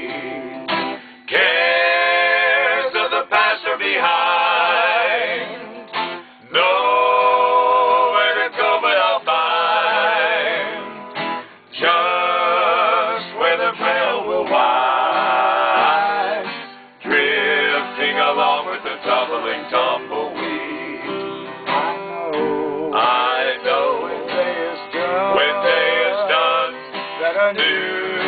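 Slow country music with guitar and long, wavering held notes, in phrases about five seconds long with short breaks between them.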